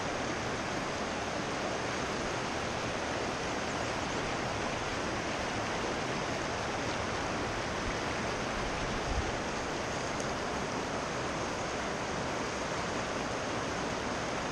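Neversink River's fast water rushing over rocks, a steady, even noise close around the wading angler.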